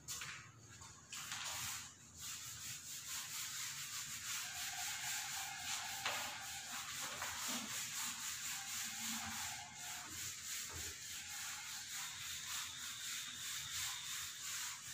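Whiteboard eraser rubbing over a whiteboard in quick, even back-and-forth strokes, wiping off marker writing.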